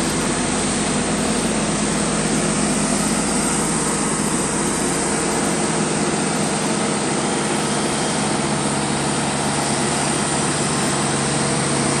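Diesel engine of a Hamm tandem road roller running steadily at an unchanging pitch, a continuous engine hum.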